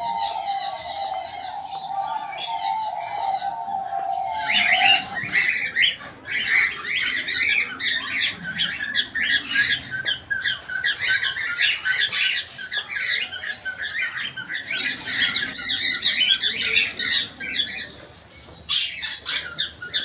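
A flock of cockatiels chirping and squawking without pause, a dense chatter of high calls. For the first five seconds there is instead a wavering steady lower tone with light high twittering, from a dove enclosure.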